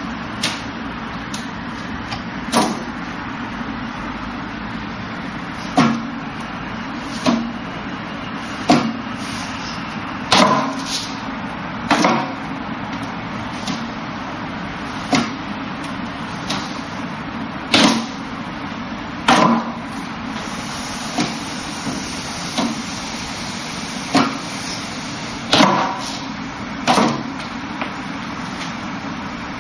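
Wooden knocks as forearms and hands strike the arms and trunk of a Wing Chun wooden dummy, coming irregularly about every one to two seconds over a steady background noise.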